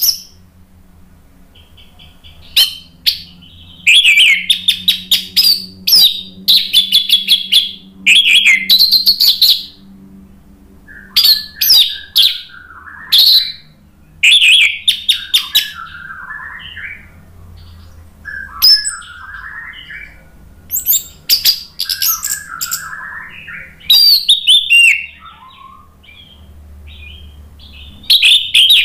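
Orange-headed thrush singing: loud phrases of rapid, high notes lasting a second or two each, broken by short pauses, with quieter, lower warbling notes in between.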